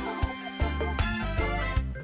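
Upbeat background music with a bass line and a regular beat.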